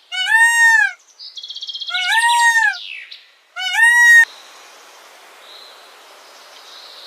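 A series of loud, high-pitched animal calls, each rising and then falling in pitch and lasting under a second, with a short rapid buzzy trill between two of them; they stop about four seconds in, leaving a faint hiss.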